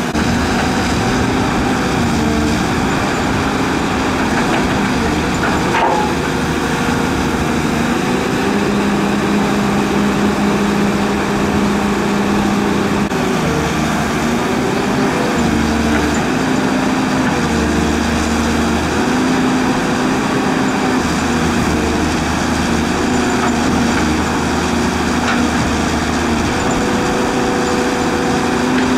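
Diesel hydraulic excavator running steadily under working load, its engine and hydraulic whine stepping up and down in pitch as the boom and bucket move through the mud.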